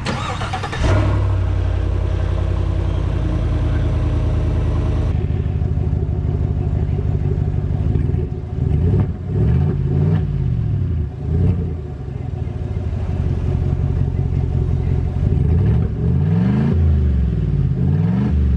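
2020 GMC Sierra pickup's engine catching about a second in on its first start after a newly built fuel system, then running at a raised idle that settles lower about five seconds in. From about eight seconds on it is revved up and back down several times, and it fires up and runs smoothly.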